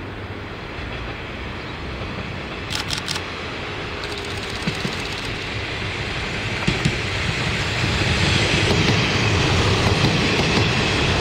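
KiHa 20 diesel railcar with its DMH17 engine approaching and passing close by, engine and wheel rumble growing steadily louder. A few sharp clacks from the wheels crossing rail joints come as it draws near.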